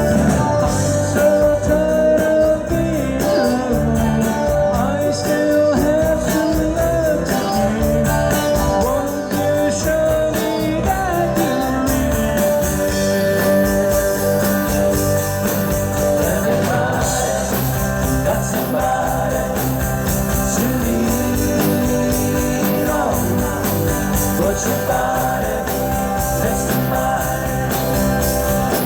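Live rock band playing a song: a singer over guitar, with a steady drum beat.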